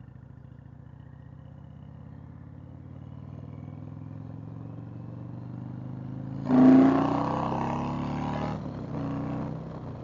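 Indian Chieftain's V-twin engine pulling under way, its note creeping up in pitch. About six and a half seconds in the throttle is opened hard: a sudden loud surge of rising engine note and rushing wind noise lasts about two seconds, then a shorter surge follows near the end.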